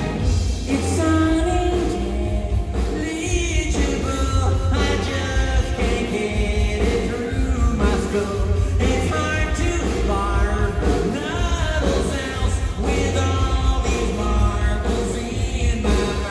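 A live rock band playing loudly with a lead singer, heard from the audience, with a heavy steady bass and drums under the sung melody.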